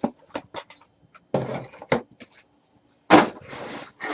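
Cardboard trading card box and its packaging being handled and opened: a few quick clicks and taps, then rustling, tearing bursts, the loudest starting sharply about three seconds in.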